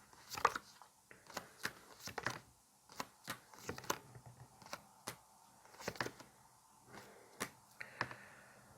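Tarot cards being handled: a quiet run of short, irregular clicks and snaps.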